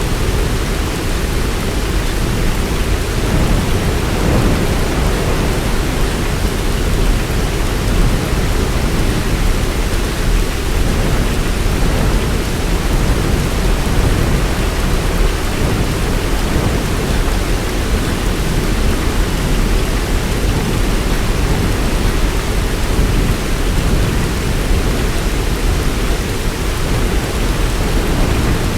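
Heavy rain pouring steadily, a dense, even sound weighted toward a low rumble, with no single drops or claps standing out.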